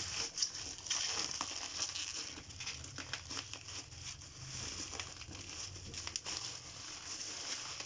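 Packaging crinkling and rustling with many small crackles as it is pulled open by hand.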